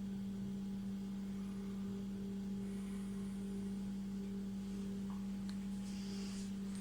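Steady low electrical hum: one constant tone with a fainter one an octave above.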